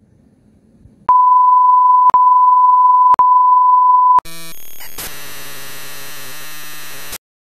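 A steady, high-pitched electronic beep tone, like a censor bleep, lasting about three seconds and broken twice by brief gaps. It is followed by a harsh, buzzing electronic sound with hiss that stops abruptly near the end.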